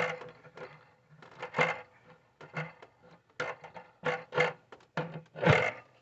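Plastic intake manifold of a Nissan 3.5-litre V6 knocking and scraping against the engine as it is worked down onto its locating guides: about a dozen irregular knocks and rubs, the loudest about five and a half seconds in.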